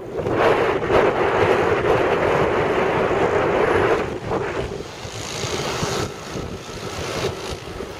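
Wind rushing over the microphone of a camera carried on a paraglider in flight. It is loud for the first four seconds and then eases off.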